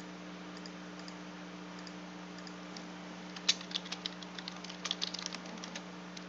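Typing on a computer keyboard: a quick run of keystrokes starting a little past halfway and stopping just before the end, over a steady low hum.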